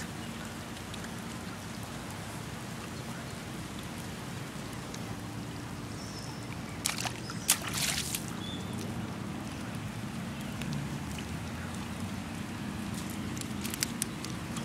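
Steady wash of light rain and trickling water on wet pavement, with a faint low hum underneath. A few sharp clicks come about seven seconds in and again near the end.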